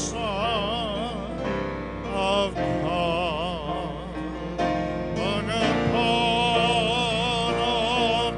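A man singing a slow gospel song, accompanying himself on a grand piano. He holds long notes with a wide vibrato, phrase by phrase, with short breaks between phrases.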